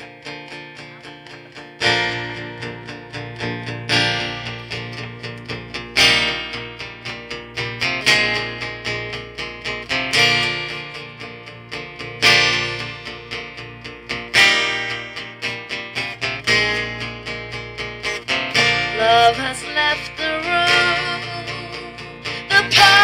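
Live acoustic guitar starting a song: after a soft opening, a strummed chord is struck about every two seconds. A woman's singing voice comes in near the end.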